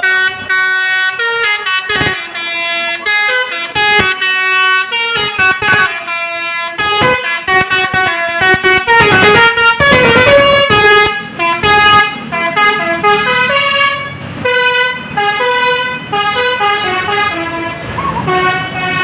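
A bus's basuri horn, a multi-tone air horn that plays tunes, sounding a melody of short notes that step up and down in pitch. The notes come in quick runs with short breaks, louder and denser about nine to eleven seconds in.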